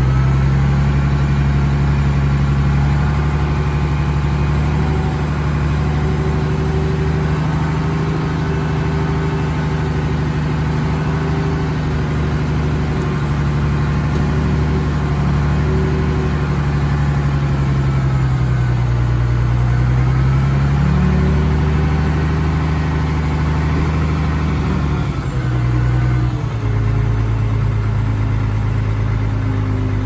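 Heavy diesel engine of earthmoving machinery running steadily, its pitch dipping and coming back up about two-thirds of the way through, then settling to a lower steady note near the end.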